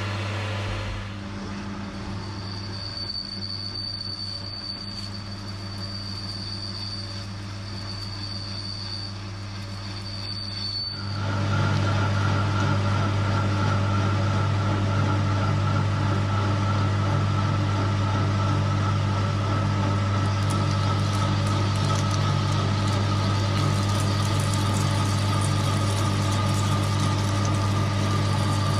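Metal lathe running with a steady hum while a tool cuts the spinning metal cylinder stock. For the first ten seconds the cut is light, with a high squeal that comes and goes. About eleven seconds in a louder parting-off cut begins, with a steady whine that slowly falls in pitch as the tool feeds in.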